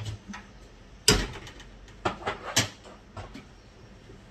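A kitchen cupboard and the things in it being handled: a handful of short knocks and clicks, the loudest about a second in, then a few lighter ones.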